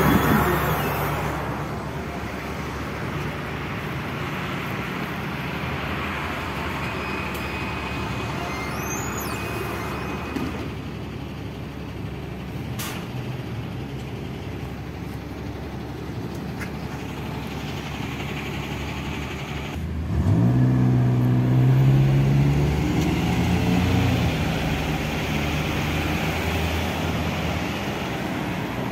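NefAZ city bus engine idling at a stop with traffic noise around it. About two-thirds of the way through, a vehicle engine suddenly gets louder and climbs in pitch as it accelerates away; this is the loudest part.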